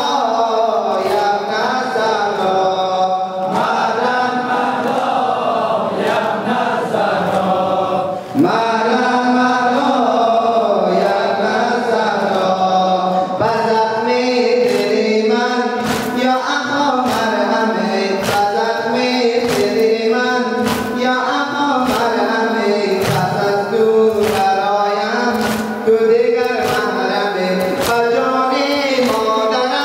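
Men chanting a mourning lament (noha) together, with sharp slaps of hands striking chests (matam) cutting through the chant about once or twice a second.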